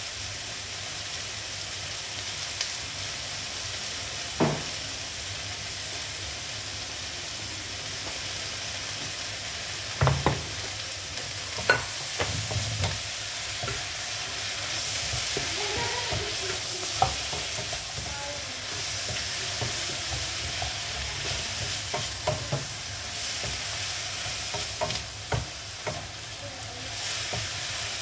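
Cabbage, green bean and carrot stir-fry sizzling in a nonstick frying pan with a steady hiss, stirred with a wooden spatula that knocks against the pan now and then, more often in the second half.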